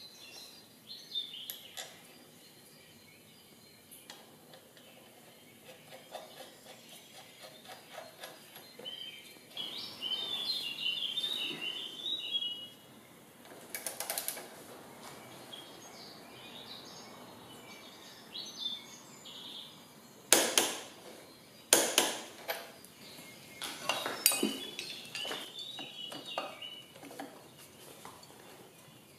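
Hand tools working on a scooter's front axle and brake caliper: scattered metal-on-metal clinks, a run of quick ratcheting clicks from a torque wrench on the axle nut, and a few sharp metallic knocks, the loudest past the middle.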